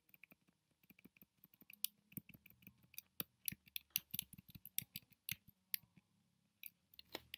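Computer keyboard keys tapped in a quick, irregular run of light clicks, several a second, with a short pause near the end.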